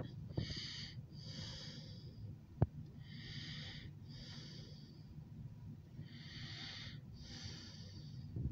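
A person breathing close to the microphone, with a wheezy, whistling hiss on each breath in and out, a pair of breaths about every three seconds. A single sharp tap comes about two and a half seconds in.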